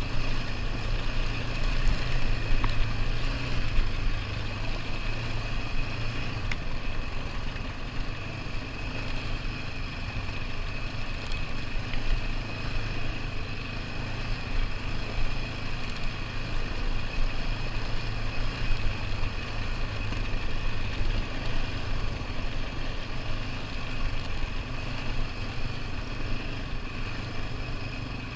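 ATV engine running steadily under way on a dirt trail, a continuous drone with rattle and road noise. The low hum is heavier for the first several seconds, then eases slightly.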